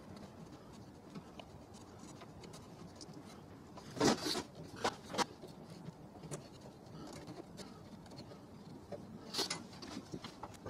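Hand chisel carving a wooden spoon bowl, with a few short scraping cuts about four seconds in and again near the end, and only faint ticks in between.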